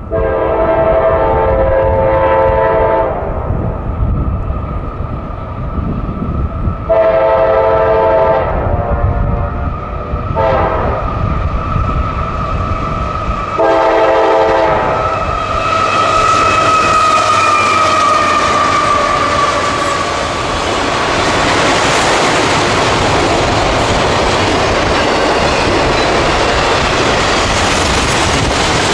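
CSX diesel locomotive's air horn sounding the grade-crossing signal: two long blasts, a short one and a long one. About halfway through, the locomotive passes close, and the steady wheel noise of the autorack cars rolling by follows, with clickety-clack over the rail joints.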